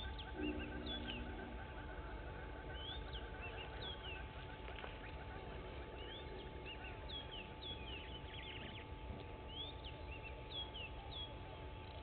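Several wild birds calling, with many short, repeated chirps and whistles over a steady low background rumble.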